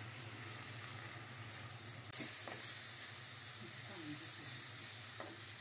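Hilsa fish head pieces and masala frying in oil in a non-stick wok: a steady sizzle, a little louder from about two seconds in, as the spices are fried down. A spatula scrapes and turns the pieces now and then.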